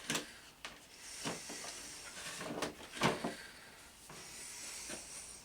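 Handling of small plastic one-handed bar clamps: several separate clicks and knocks with a faint rustle between them.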